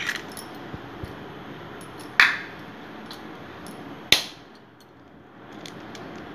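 Raw eggs being cracked against the edge of a plastic spoon: two sharp taps about two seconds apart, with a few lighter clicks of shell between.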